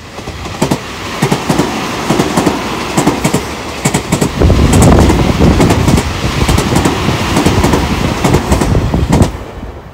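A Tobu 50050-series electric commuter train passing close by at speed, its wheels clacking over the rail joints in a steady run of sharp clicks. The noise is heaviest about halfway through and falls away quickly near the end as the last car goes by.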